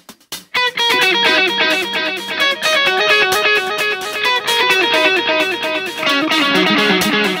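Instrumental intro of a rock song: an electric guitar plays a fast picked riff of rapidly repeating notes, after a few short clicks at the very start.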